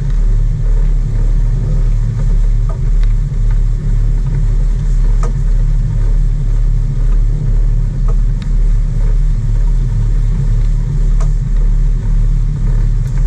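Sport-fishing boat's engines running steadily at trolling speed: a deep drone with a regular throb in its loudness.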